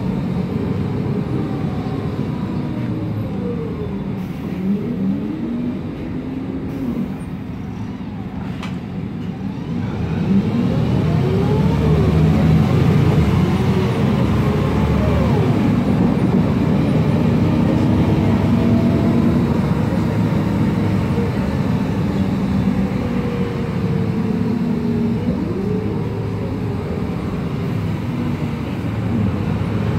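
Cabin sound of a MAN Lion's Classic city bus under way: the MAN E2876 CNG engine and ZF Ecomat 6HP504C six-speed automatic gearbox running, with whining tones that glide up and down in pitch as the bus speeds up, shifts and eases off. It gets louder about ten seconds in.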